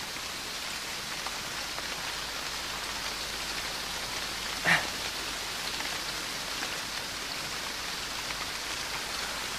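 Steady rain falling, an even hiss. A brief, louder voice-like sound rises above it about halfway through.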